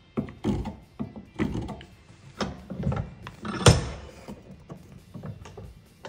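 Irregular wooden knocks and clunks as a pine workpiece is lifted out of a woodworking bench vise, laid flat and clamped again, the sharpest knock a little under four seconds in.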